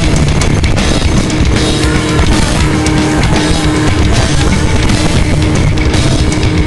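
Loud heavy rock music with electric guitar, playing steadily throughout.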